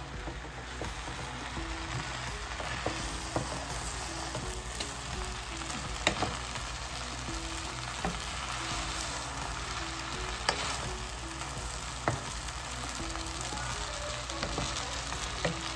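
Food sizzling in a hot pan while being stirred, with a few sharp clicks of the utensil against the pan.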